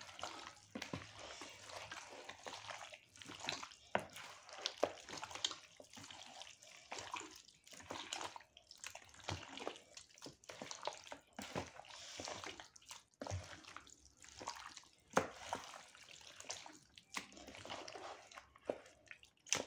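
Hands mixing and kneading raw chicken pieces in a wet yogurt, lemon-juice and spice marinade in a plastic bowl: faint, irregular wet smacks and clicks.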